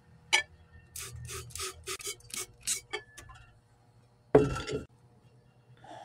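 Glassware being handled at a bench. There is a click, then a run of about eight short scraping strokes against glass, and about four seconds in a single loud knock as a glass vessel is set down.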